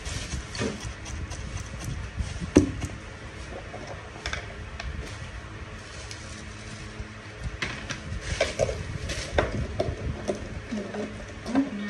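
Stone pestle knocking in a granite mortar while chili and shrimp-paste dip is pounded: a few separate knocks, the loudest about two and a half seconds in.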